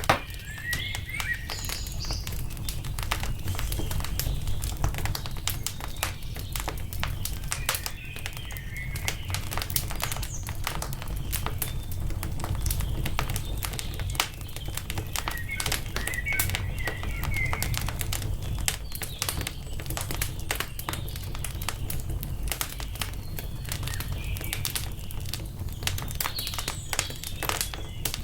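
Wood fire crackling with dense, irregular pops and snaps over a low steady rumble, while small birds chirp in short bursts four times.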